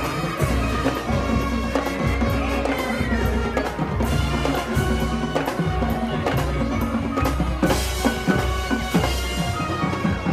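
High school marching band playing a rock tune: the drumline drives a steady beat with bass drums and snare under sustained band notes.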